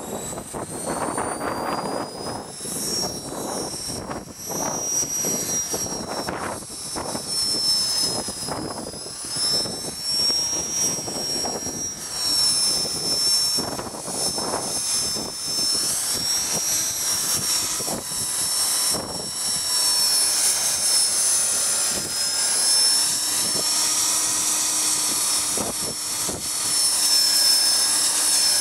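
HK-450 electric RC helicopter's brushless motor and rotor head whining, the pitch climbing over the first few seconds as it spools up, then wavering as the rotor speed shifts. Gusts of strong wind buffet the microphone underneath.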